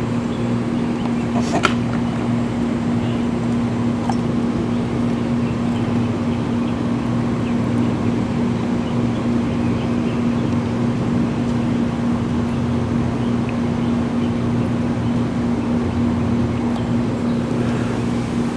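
Steady mechanical hum with a constant low tone, with a faint click about one and a half seconds in and another about four seconds in.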